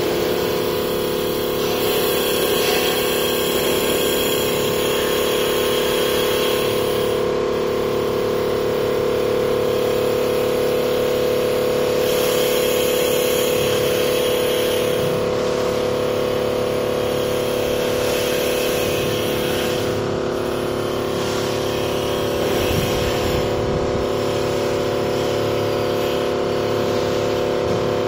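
Small automatic-feed CNC wood-turning lathe running and cutting a wooden knob: a steady motor and spindle hum under the hiss of the cutting tool in the wood. The cutting hiss grows louder for a few seconds a couple of seconds in and again near the middle.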